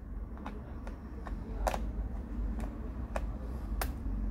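A small screwdriver tip and metal tweezers clicking and scraping against the plastic bottom case of a Lenovo Ideapad S340 laptop while picking at a stuck part: about half a dozen sharp, irregular clicks over a low steady hum.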